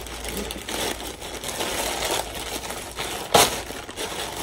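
A package's wrapping rustling and crinkling as it is handled and opened, with one sharp, louder crackle about three and a half seconds in.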